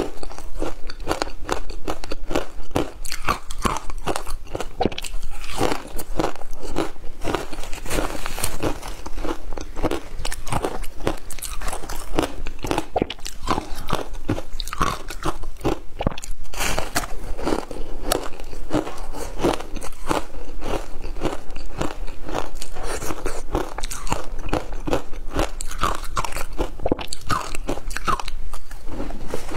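Frozen passion-fruit ice being bitten and chewed: a dense, continuous run of crisp crunches.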